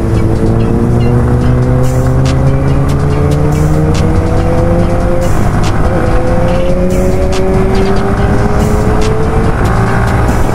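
Yamaha motorcycle engine heard from the rider's seat, its pitch rising slowly under acceleration in long sweeps. The pitch drops at gear changes about half a second in, around six seconds in and near the end, over steady wind and road noise.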